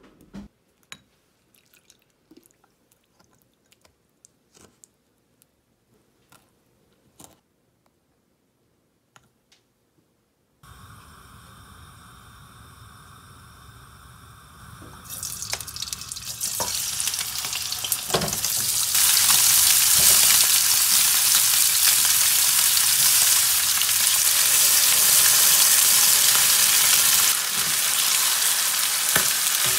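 Sparse small clicks and taps as seasonings go into a small glass bowl, near silence between them. After about ten seconds a steady hiss begins, then raw chicken pieces sizzle loudly in hot oil in a non-stick wok, stirred with a wooden spatula.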